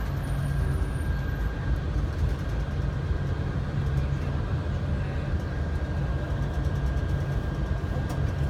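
Steady low rumble of a moving vehicle heard from inside, with a faint constant whine above it.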